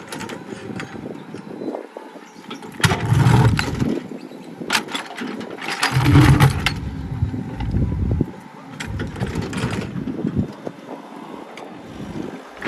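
Excavator running and straining in repeated loud surges, roughly every three seconds, as it works at prying a large stone that it cannot shift.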